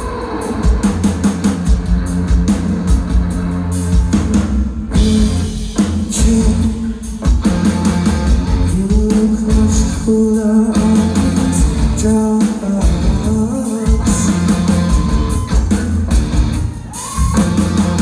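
Live rock band playing loud and steadily: electric guitars, bass and a drum kit, with a singer.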